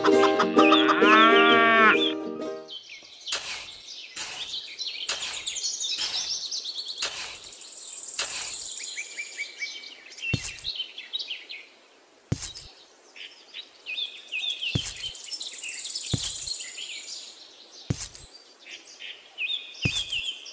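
A cow mooing for the first two and a half seconds or so, then small birds chirping and twittering, with scattered short knocks.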